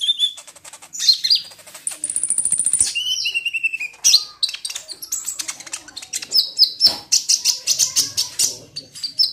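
Kolibri ninja sunbird singing: rapid high chirps and twittering trills, with a fast, high trill about two seconds in followed by a short falling note.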